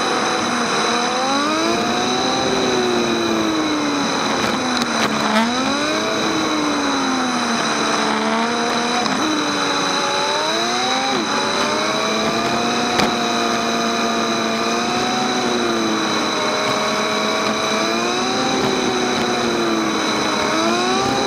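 Motorcycle engine under way, its pitch rising and falling repeatedly as the rider accelerates and eases off through bends, over a steady rush of wind and wet-road noise.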